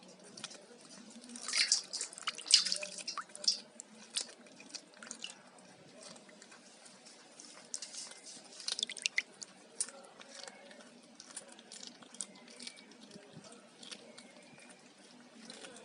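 A cat chewing and eating fish: irregular sharp mouth clicks and smacks, busiest about two seconds in and again about eight seconds in.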